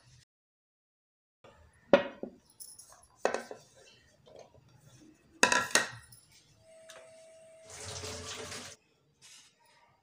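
Sharp knocks and clinks of a wooden mortar and pestle and a china plate handled on a glass tabletop: four hits, the loudest about two seconds in. A brief steady tone follows, then a hiss of about a second near the end.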